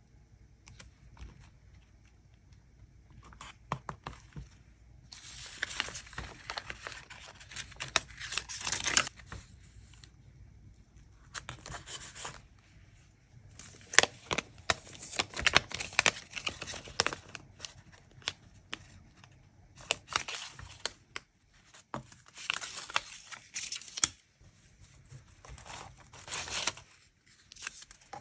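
Paper and stickers being torn and peeled in several rasping bursts of one to three seconds each, with light clicks and rustles of paper being handled in between.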